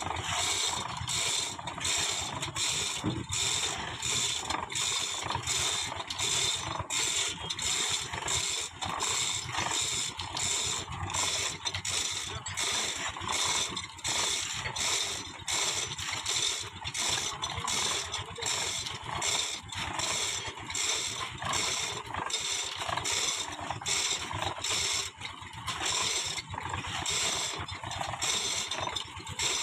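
Steel mould of a spun (hume) concrete pipe machine turning on its drive rollers: a continuous, fast, evenly repeating metal clatter over a running rumble. The spinning packs the concrete against the mould wall.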